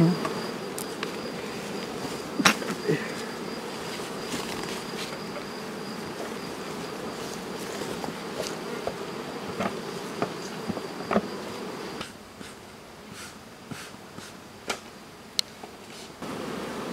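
Honeybees buzzing around their hives in a steady hum, with scattered light ticks and a thin steady high tone above it. The hum falls away for a few seconds near the end, then returns.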